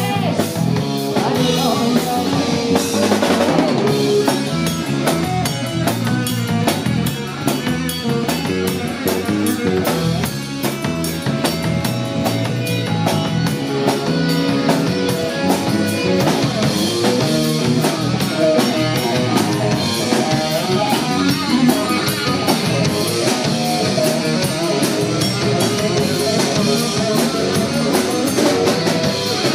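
Live rock band playing an instrumental passage: electric guitar, bass guitar and drum kit, with a steady driving drum beat and no vocals.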